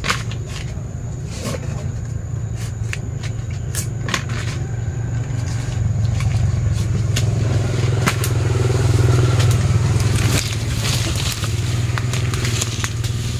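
Steady low engine-like rumble that swells in the middle, with scattered knocks, snaps and scrapes of jackfruit being handled and sorted.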